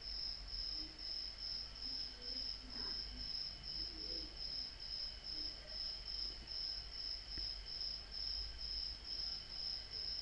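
Insect chirping: a high, thin note pulsing evenly about three times a second, with a faint low hum beneath.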